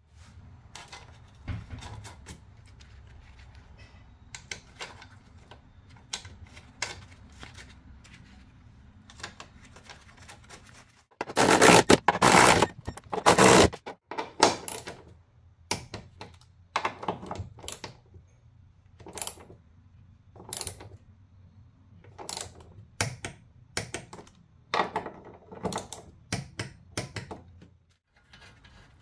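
Scattered metallic clicks and knocks of tools and parts being worked while a car's front strut is fitted. About eleven seconds in comes a much louder rattling burst of two or three pulses lasting about two and a half seconds. A low steady hum runs underneath except during that burst.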